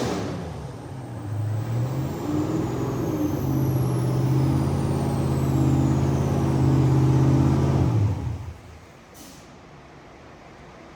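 Supercharged HEMI V8 of a Challenger Drag Pak on a chassis dyno, running steadily at moderate speed after a high-rpm pull, with a high whine falling in pitch over the first few seconds. The engine sound drops away abruptly about eight seconds in, followed about a second later by a short hiss.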